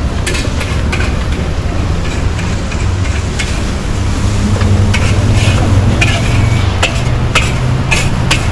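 Busy night-market street ambience: a steady low hum and a noisy wash, with many scattered clicks and clatter.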